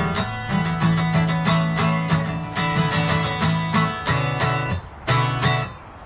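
Acoustic guitar strummed in a steady rhythm of about three strokes a second, chords ringing between strokes; the strumming drops away briefly near the end.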